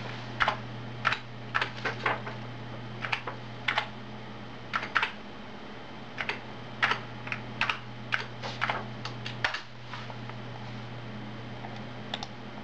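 Keys tapped on an Amiga computer keyboard in an irregular run of clicks for about ten seconds as an IP address is typed, then a single click near the end, over a steady low hum.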